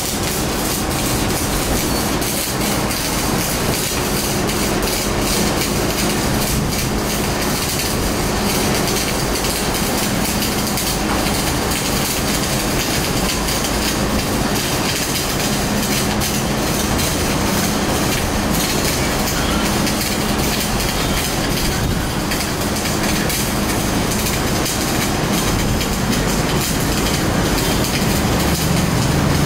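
Electric arc welding on a steel pipe-to-plate joint: the arc crackles and sizzles steadily with no break.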